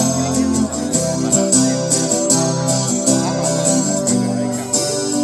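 Live acoustic music with no singing: an acoustic guitar strummed in a steady rhythm, with longer held notes sounding over it.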